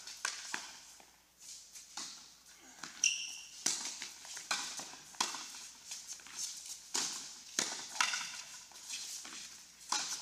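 Doubles tennis rally on an indoor court: tennis balls struck by rackets and bouncing, a sharp knock every second or so, with footsteps and a brief high shoe squeak about three seconds in.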